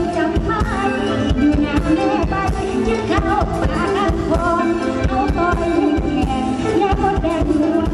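A woman singing into a microphone over amplified band music with a steady drum beat.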